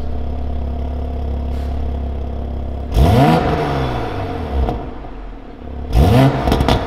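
Toyota GR Supra's 3.0-litre turbocharged inline-six through a catless Fi Exhaust valvetronic system. It idles steadily, then is blipped twice: a sharp rev up and back down about three seconds in and another near the end. Each blip is followed by crackling as the revs fall.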